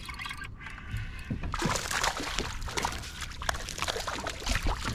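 Water splashing and sloshing, starting about a second and a half in: a hooked bass thrashing at the surface beside the kayak.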